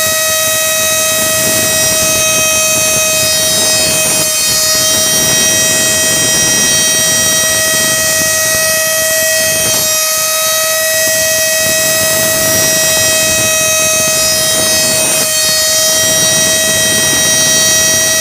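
A small desktop CNC engraver's spindle motor runs with a steady, high-pitched whine and several overtones while a 0.3 mm engraving cutter mills a 3D relief. The sound briefly dips about every five and a half seconds as the machine changes its pass.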